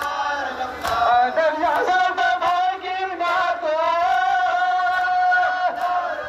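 A lead voice chanting a Muharram lament (noha) through horn loudspeakers, sung in long held notes with phrases that fall away at their ends.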